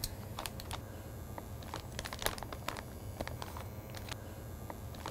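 Quiet, scattered crinkles and small clicks of a clear plastic bag being handled around the hose of a handheld food-smoking gun.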